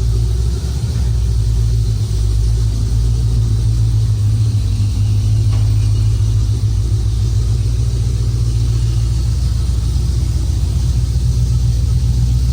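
1967 Pontiac Firebird's 400 cubic inch V8 running at an even cruise: a steady, deep low engine drone with no clear revving.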